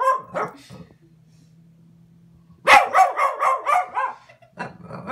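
Boston terrier barking and yowling in rapid, pitched, almost talking outbursts: a short flurry at the start, a longer run of about a second and a half from near the middle, and more starting near the end. A quieter low steady drone fills the pause between them.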